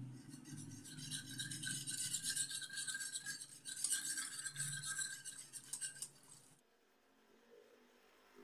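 Wire whisk beating a liquid mixture in an aluminium saucepan: a fast, steady scraping rattle of the wires against the metal pan. It stops about six and a half seconds in.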